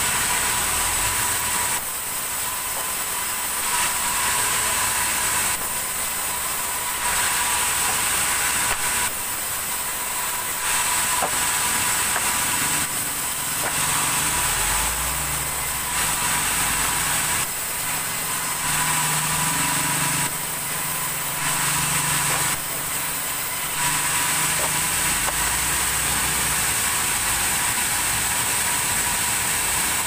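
Sawmill vertical band saw running, its blade ripping through a log fed along the table. The cutting noise swells and drops every couple of seconds over a steady high whine.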